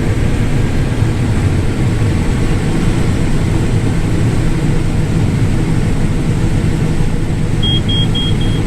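Combine harvester running steadily while harvesting corn, a constant low rumble. Near the end, four short, high electronic beeps about a quarter second apart.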